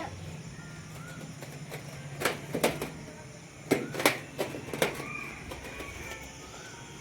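A few sharp knocks or taps, loudest about two and four seconds in, with short bird chirps over a steady low hum.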